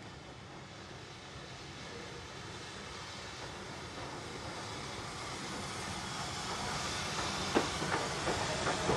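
Southern Railway U class 2-6-0 steam locomotive 31806 running slowly past with its train, hissing steam from the front of the engine, growing louder as it nears. From about seven and a half seconds in, the wheels clack sharply over the rail joints.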